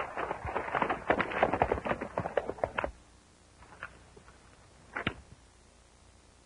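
Hoofbeats of several horses setting off, a rapid, uneven clatter of hooves that cuts off suddenly about three seconds in. A few faint knocks and one sharper knock follow near the five-second mark.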